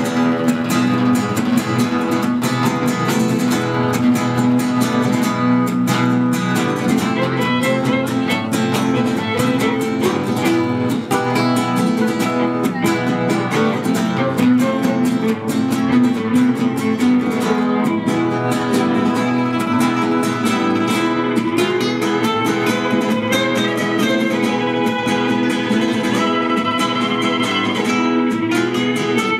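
Live acoustic trio of two acoustic guitars and a violin playing a tune, the guitars strumming and picking a steady rhythm while the violin is bowed over it.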